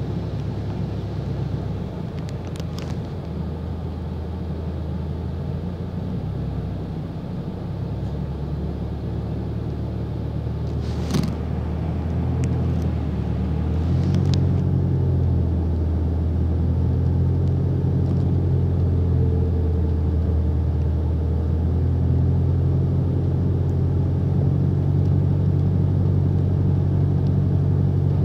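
Bus engine running steadily, heard from inside the passenger saloon, with a few sharp clicks and rattles. The engine hum grows louder about halfway through.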